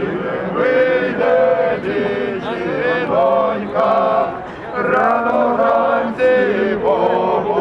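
A group of men singing a Cossack folk song together, several voices holding long drawn-out notes.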